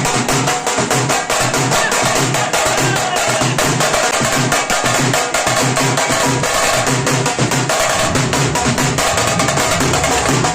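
Dhak and dhol drums beaten fast and continuously, with many sharp strokes a second over a steady low pulse.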